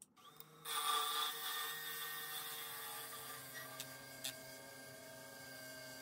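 Wood lathe running with sandpaper held against the spinning wooden spindle: a hissing rub over the lathe motor's steady whine, loudest as the sanding starts about a second in, with two short clicks near the middle.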